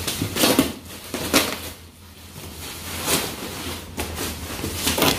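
Bubble-wrap packaging rustling and crinkling, with a cardboard box scraping and shifting as it is handled and pulled out of its plastic wrapping. It comes in several separate loud rustles.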